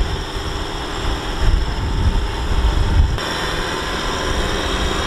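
Diesel engines of a Kubota M6040SU tractor stuck in deep mud and the Kubota combine harvester towing it by chain, both running under load with a deep rumble that surges unevenly. The sound changes abruptly about three seconds in.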